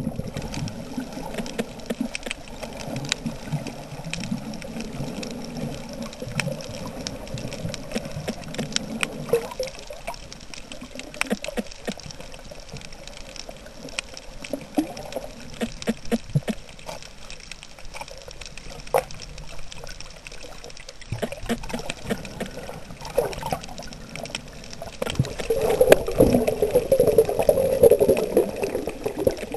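Muffled underwater rush of water moving around a waterproof camera, with scattered sharp clicks, growing louder near the end.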